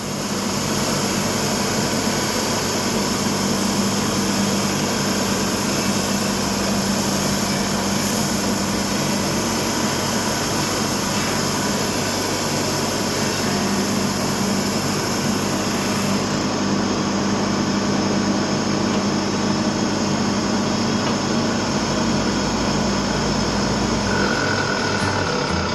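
Home-built drum sander running steadily, its small 0.35 kW electric motor spinning the PVC sanding drum with a constant hum and whir. The very top of the sound drops away about two-thirds of the way through.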